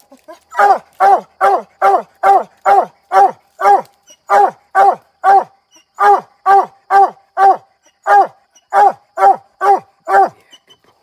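Coonhound barking at the tree in a rapid chop: short, sharp barks about three a second, in runs broken by brief pauses, stopping about a second before the end. This is the tree bark of a hound that has a raccoon treed.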